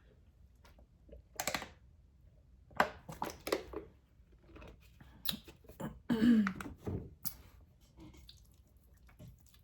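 A person chewing a mouthful of instant noodles, with scattered wet smacks and clicks of the mouth and a brief pitched sound about six seconds in.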